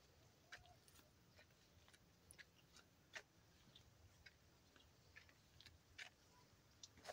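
Near silence: faint outdoor background with scattered soft, irregular clicks and ticks.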